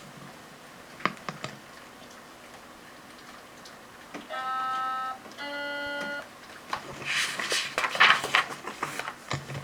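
Two steady electronic tones, each about a second long, the second lower, about halfway through; then paper rustling near the end as a picture-book page is turned, with light handling clicks.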